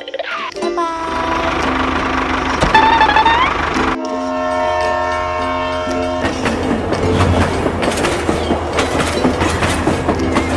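A heavy vehicle rumbles and rattles as it moves, and a multi-tone horn blows one steady chord for about two seconds, starting about four seconds in.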